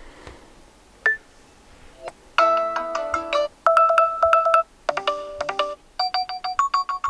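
Nokia G11 alarm tone previewing through the phone's speaker: after a quiet couple of seconds and one short blip, a bright melodic chime plays in short phrases of quick notes with brief pauses between them.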